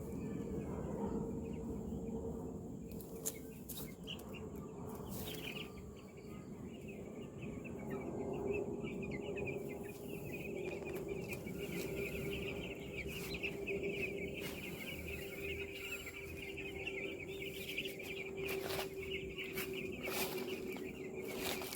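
A flock of young chicks peeping in a dense, continuous chorus that grows stronger about five seconds in, over a steady low hum, with a few scattered clicks.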